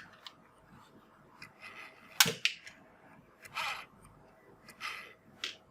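Toy revolvers being handled: one sharp click about two seconds in, then several softer rattles and scrapes.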